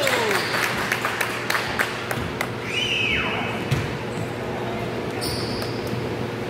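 A basketball dribbling on a hardwood gym floor, a quick run of bounces in the first couple of seconds, with a short falling sneaker squeak about halfway through. A steady hum and scattered voices run underneath in the echoing gym.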